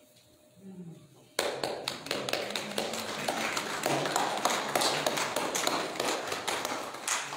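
A small congregation clapping, starting suddenly about a second and a half in and going on for about six seconds before dying away.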